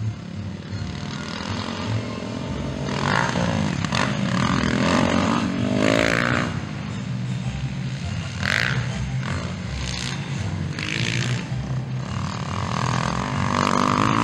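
Motocross dirt bike engines revving hard as the bikes ride the dirt track, the pitch rising and falling in several bursts, with one long rise near the end.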